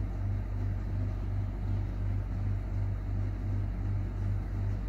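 Steady low machine hum that throbs about two or three times a second.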